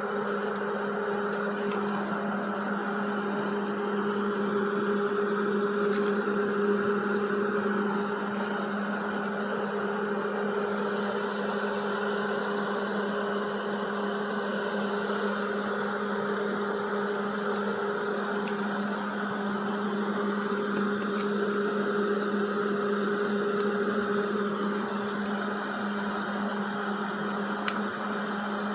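A motor-driven machine running with a steady hum.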